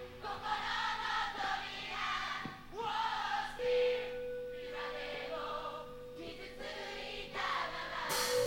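Quiet breakdown in a live rock band's performance: a single held note sustains under many voices singing together, and near the end the full band crashes back in loudly.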